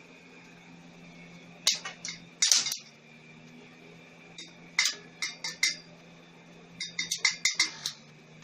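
Stick (arc) welding with a homemade welding machine: the electrode is struck on the work, giving irregular sharp crackles and sputters, some in quick clusters, over a steady low hum from the machine.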